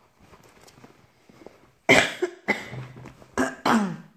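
A woman coughing: a quick series of four coughs begins about two seconds in, and the last ones are partly voiced.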